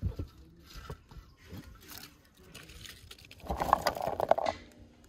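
Handling noises of chopped cabbage being pressed by hand into a large glass jar. About three and a half seconds in comes the loudest sound: a brief clatter of many quick knocks as a handful of peeled garlic cloves is scooped up in a metal basin.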